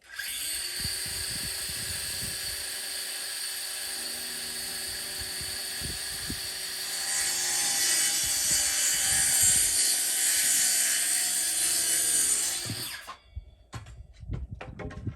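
An electric power tool runs steadily, gets louder about seven seconds in, then stops near the end.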